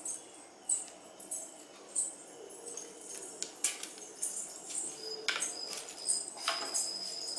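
Unboxing packaging handled by hand: irregular crinkles and light clicks of plastic wrap and a polystyrene foam tray, with a thin high squeak from about five seconds in.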